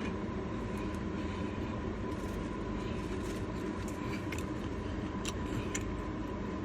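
Steady low rumble and hum with a constant faint high tone behind it. A few small clicks and crinkles come in the second half, from eating a sauce-dipped chicken strip and handling its paper.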